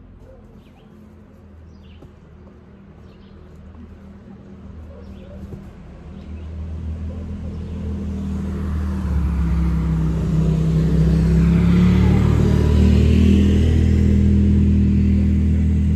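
An engine approaching and getting steadily louder for about ten seconds, with a low hum that is loudest near the end and eases off slightly at the very end. Faint bird chirps are heard at the start.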